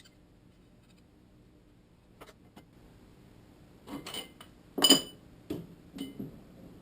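Metal fork parts clinking and tapping against each other and on tools during hand assembly of a WP suspension fork, a handful of separate clinks, the loudest a sharp ringing clink about five seconds in.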